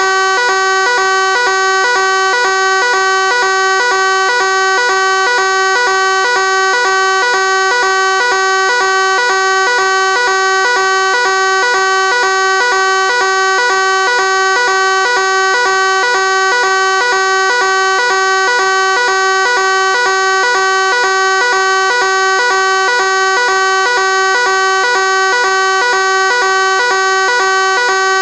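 Fire alarm sounding: one loud, continuous, harsh tone rich in overtones, held steady without a break.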